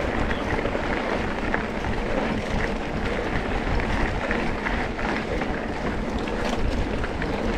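Off-road vehicle engine running under way, with wind noise on the microphone.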